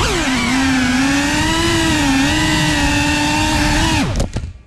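Cinewoop FPV drone's small brushless motors and ducted propellers whining, the pitch shifting with throttle. The whine drops sharply in pitch at the start, holds fairly steady, then falls and cuts out almost to silence near the end.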